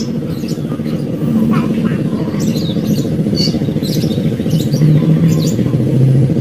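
A motor engine running steadily with a low hum, with short bird chirps over it.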